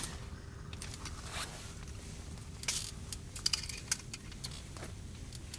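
Short rasping and scraping noises with scattered light clicks, from ice-fishing tackle being handled while a fish is brought up through the hole.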